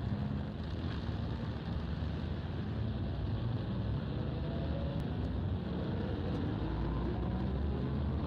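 Steady drone of motor traffic: vehicle engines running, with a few faint rising engine notes.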